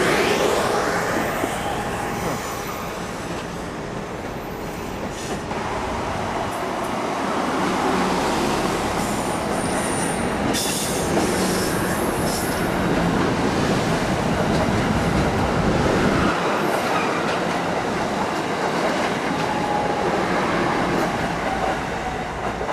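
Amtrak Acela Express trainset passing at speed at the start, its sound falling in pitch as it goes by. It is followed by the steady rumble of a Metro-North electric commuter train running past on the rails, with a brief high squeal about ten seconds in.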